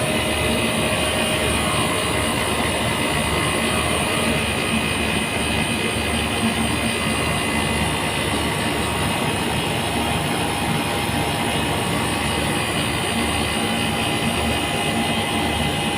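Air-conditioning unit running steadily after the filter-drier change and R22 recharge, a constant mechanical hum with a few steady high whining tones.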